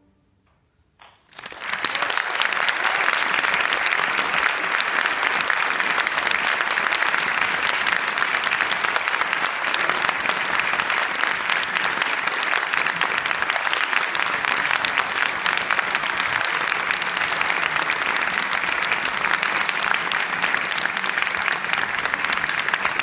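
Audience applauding: after about a second of near silence, clapping starts and holds steady and dense.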